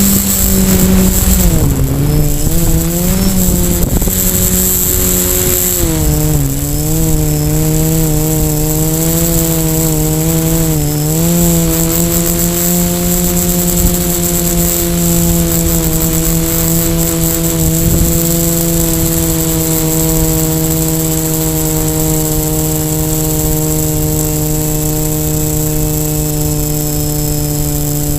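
Quadcopter's electric motors and propellers buzzing with a steady pitched drone. For about the first dozen seconds the pitch wavers up and down as the throttle changes, then it holds nearly level, sinking slightly.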